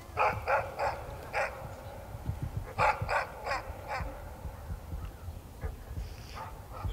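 Short, harsh animal calls in quick runs: four in the first second and a half, four more about three seconds in, and fainter ones near the end, over a low rumble.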